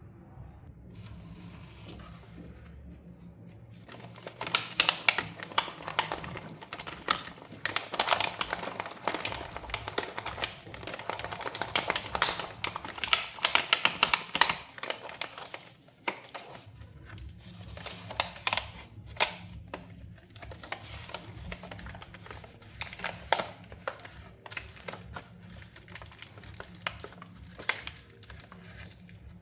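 Plastic packaging crinkling and small plastic toy pieces clicking and tapping as they are handled during an unboxing, dense for the first half after a few quiet seconds, then sparser clicks.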